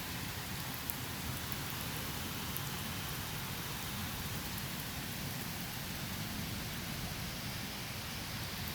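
Heavy rain falling steadily, with one sharp tick about a second in.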